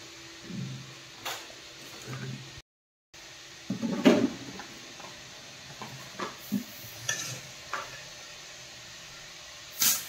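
A metal spoon scraping and clinking against a metal bowl while scooping sticky jackfruit and wheat dough. It comes as a series of short knocks: a cluster of clatter about four seconds in, a few lighter clinks after that, and a sharp clink near the end.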